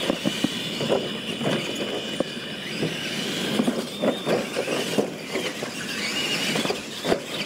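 Radio-controlled monster trucks racing on dirt: a high motor and gear whine that rises and falls with the throttle, over a running clatter of tyres, suspension and bodies knocking as they cross the ramps.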